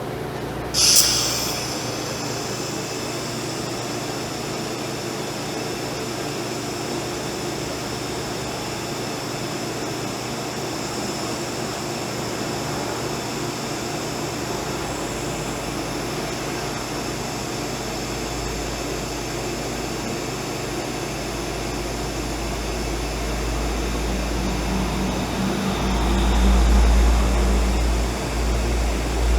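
TIG welding arc on a low-amperage fusion weld of 304 stainless steel tube. The arc strikes with a sharp high-pitched burst about a second in, then runs as a steady hiss. A low rumble builds over the last few seconds.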